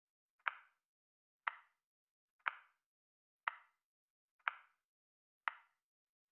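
Timer ticking once a second, each tick a short, sharp click with a brief tail; every other tick has a faint click just before it, like a tick-tock. The ticks mark the seconds of the countdown.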